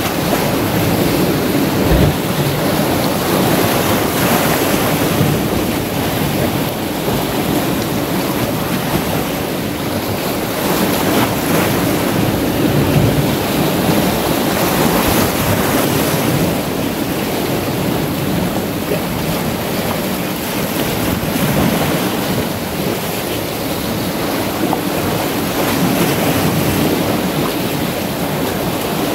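Sea waves washing and breaking against boulders, a steady surging rush of surf, with wind buffeting the microphone.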